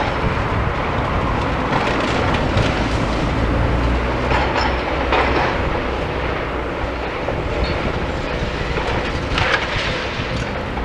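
Demolition excavator working on a building: its engine runs steadily underneath while rubble and timber crunch and clatter in scattered knocks. The low engine hum is strongest about halfway through.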